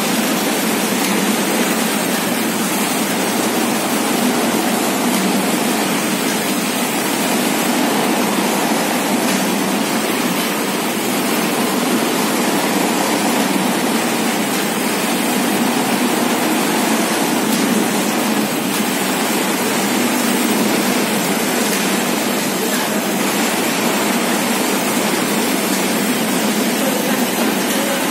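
Kraft paper dunnage air bag hot-melt production machine running, a steady, even mechanical noise with no distinct rhythm.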